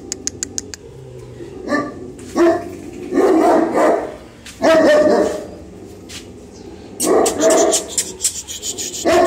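Large kennelled dogs, bully kuttas, barking behind the bars: deep barks in about five bouts, some single and some in quick runs. A fast run of small clicks comes just before the first bark.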